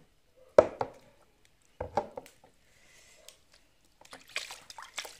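Two sharp knocks of a large knife chopping into a small animal carcass in a plastic tub, about a second apart, the first one doubled. Near the end comes wet squelching and light splashing as the entrails are pulled out in water.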